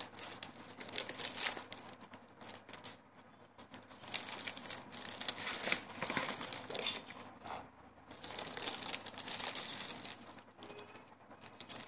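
Plastic book covers and a clear plastic bag crinkling as the covers are handled and turned over one by one. The crinkling comes in three spells, with short quiet gaps between them.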